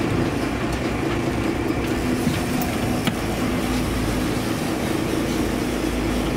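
Sport-fishing boat's engine running steadily: a constant drone with a steady hum.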